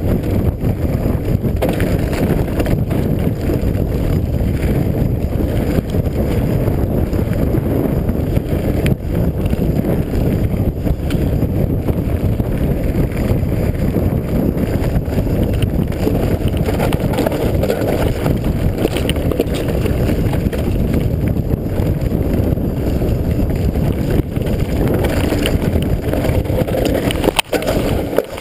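Wind rushing over the microphone and the rattle of a mountain bike riding fast down a rough, stony dirt trail, steady and loud with small knocks from the bike; it drops off abruptly at the very end.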